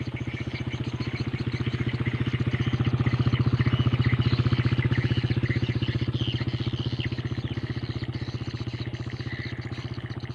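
A motorcycle's engine going past, growing louder to its peak about four seconds in and then slowly fading away.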